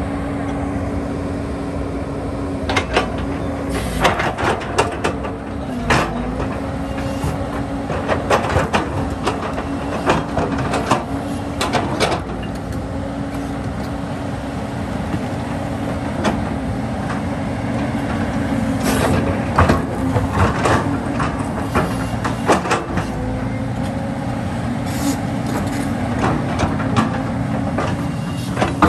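JCB crawler excavator's diesel engine running steadily, its pitch dipping briefly a couple of times as it takes load, with repeated sharp knocks and clanks as the bucket and tracks shift rocks and a boulder.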